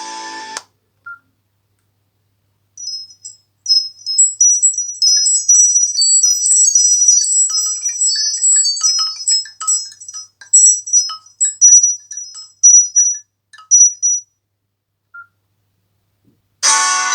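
A Nokia C5-00's built-in ringtone playing on the phone: a run of rapid, very high, tinkling chime notes lasting about eleven seconds. A guitar tone cuts off just after the start, and another tone begins near the end.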